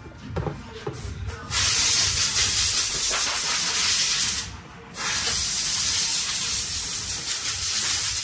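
Two long hisses, each about three seconds, from a pressurized air or spray nozzle blasting the 6L80 transmission's clutch plates clean, with a brief pause between them. A few light clicks come before the first hiss.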